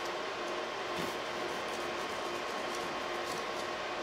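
Sharp knife slicing through frozen, water-soaked case foam in a few faint short strokes, under a steady hum and hiss.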